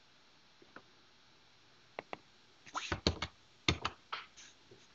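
Computer keyboard keys clicking: a few scattered keystrokes, then a quick run of key presses about three seconds in.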